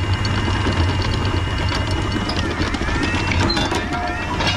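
Anchor windlass hauling in anchor chain: a steady motor hum with the chain links clicking over the gypsy and bow roller.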